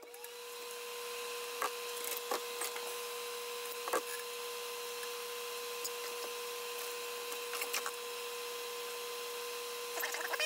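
Electric fan switched on, spinning up over about a second and then running with a steady hum and airy hiss. A few light clicks and knocks, with a short cluster of them near the end.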